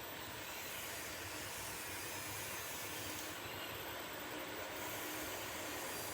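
Steady background hiss, even and unchanging, with no distinct events.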